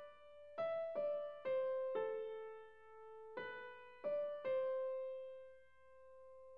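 Background piano music: a slow melody of single notes, each struck and fading away, the last of them left to ring out a little past the middle.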